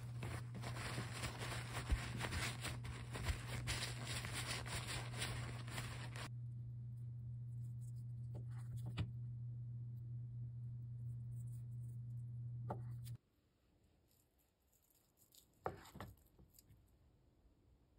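Kitchen paper towel rustling and crinkling as it is rubbed and patted against blocks of canned Spam to soak up their moisture, over a steady low hum that cuts off suddenly about two thirds through. Then a kitchen knife slicing through the ham, with a few sharp taps as the blade meets the wooden cutting board, loudest near the end.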